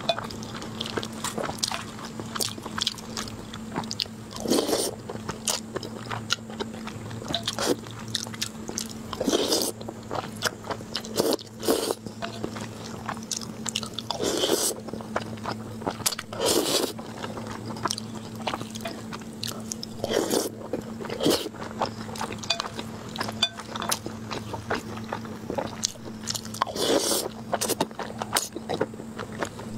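Close-miked eating: wet chewing and lip smacking of braised pork belly, glass noodles and rice, with a louder slurp of noodles every few seconds.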